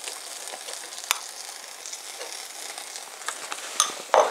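Chicken breasts and ciabatta sizzling steadily in a hot ridged grill pan, with a light click about a second in and a sharper clack of utensils against the pan near the end.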